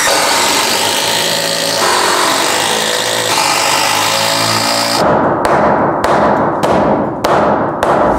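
Cordless impact driver running in long stretches, driving screws through a temporary wooden post into a header. About five seconds in come about six sharp hammer blows on the foot of the post, knocking it from an angle toward plumb to jack the header up slightly.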